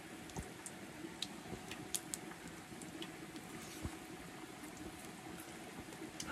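Food simmering quietly in a pan or pot, a faint steady bubbling hiss, with a few light clicks scattered through it.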